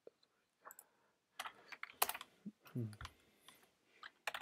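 Typing on a computer keyboard: irregular keystrokes, some louder than others.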